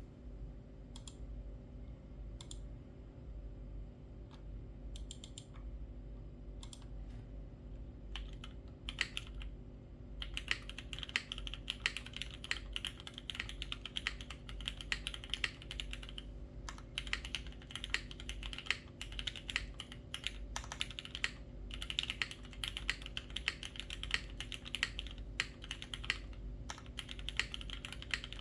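Tomo 75% mechanical keyboard with an aluminium plate, lubed and filmed Cherry HyperGlide Black linear switches, GMK keycaps and no foam, being typed on: scattered single keystrokes at first, then fast continuous typing from about ten seconds in.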